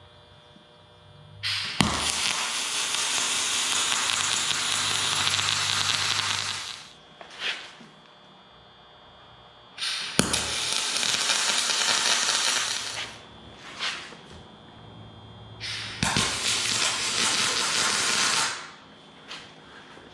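Aluminum MIG welding with a spool gun: the arc hisses and crackles in three runs, the first about five seconds long and the next two about three seconds each, with short arc strikes in between.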